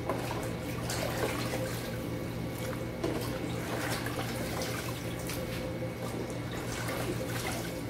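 Small fish being washed by hand in a basin of water in a sink: water sloshing and splashing as the fish are stirred and lifted out, with drips, over a steady low hum.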